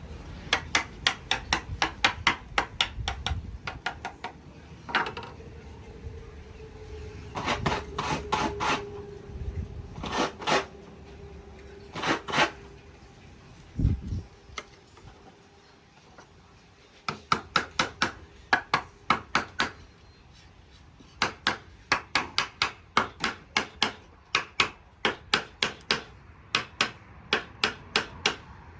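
Hammering on wood: runs of quick, sharp taps, about five a second, broken by short pauses. A single low thump comes about halfway through.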